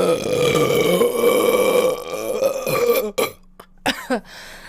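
A woman's long, loud burp lasting about three seconds, followed by a couple of short vocal sounds.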